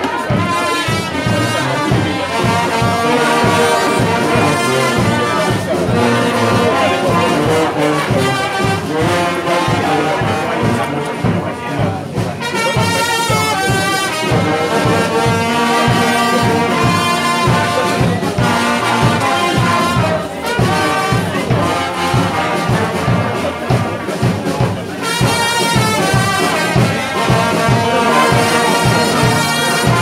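A brass band playing a melodic tune, with several brass instruments sounding together.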